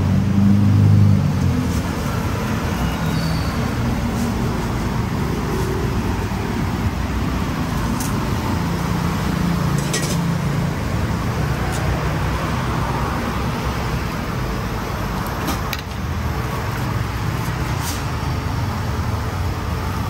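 Steady road traffic noise, the running of passing cars and buses, with a few short clicks and clinks over it.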